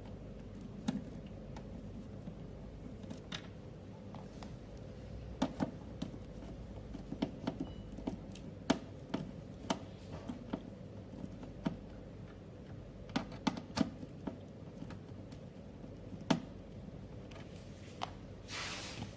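Irregular small clicks and knocks of parts being handled and fitted while a HIFU machine's handle is installed, over a steady low hum. A short rustle comes near the end.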